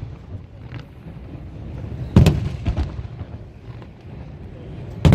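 Aerial firework shells bursting: a loud bang about two seconds in and another right at the end, with fainter pops in between.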